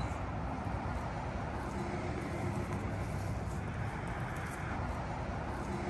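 Steady outdoor background noise with the low hum of distant road traffic; no single event stands out.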